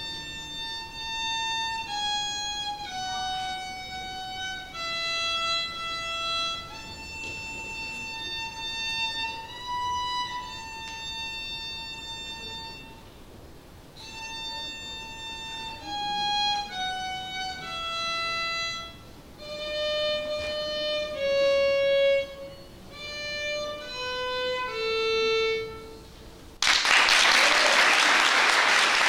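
A student violinist playing a slow unaccompanied melody of held, bowed notes, one at a time, with a short break about halfway. The tune ends a few seconds before the end, and applause breaks out.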